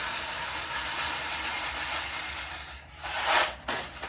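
Dry pasta noodles being poured into a pot of water on the stove: a steady rushing hiss, then a louder burst about three seconds in.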